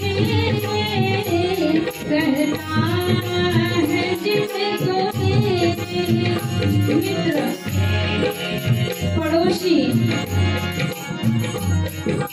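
A woman singing a Hindi devotional bhajan, close on a microphone, with a steady drum beat and rattling percussion accompanying her.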